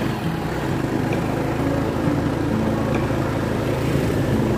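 Motorcycle engine running at a fairly steady note while riding up a hill road, under a constant rush of wind and road noise.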